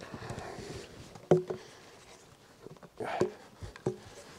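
Wooden baton tapping wooden wedges into a crack in a dead log to split it: a few sharp wooden knocks with a short ringing tone, a double knock about a second in and two more near the end.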